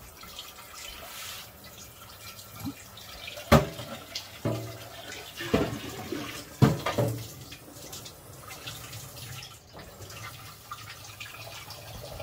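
Tap water running into a kitchen sink as a pan is rinsed out, with several clunks of the pan against the sink between about three and a half and seven seconds in.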